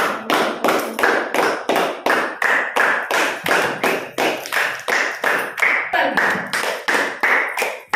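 Several people clapping in a steady rhythm, about four claps a second.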